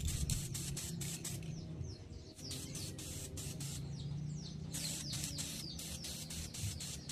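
Aerosol spray can of clear gloss hissing in a rapid stutter, with two short breaks. Birds chirp in short falling calls through the middle.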